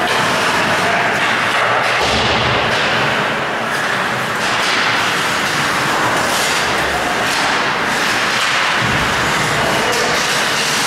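Ice hockey play on a rink: skate blades scraping across the ice with repeated swishes, and knocks and thuds of sticks, puck and boards, over a steady loud rink noise.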